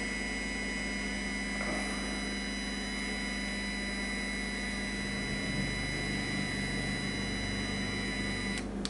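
3Doodler Create 3D printing pen's filament drive motor running steadily on slow feed as it extrudes ABS: a constant low hum with a thin high whine over it, the whine cutting off just before the end as the pen stops feeding.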